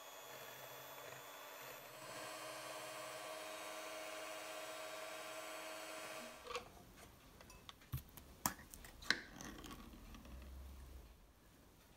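A small electric motor runs steadily with a level hum, then cuts off about six seconds in, followed by several sharp clicks and knocks.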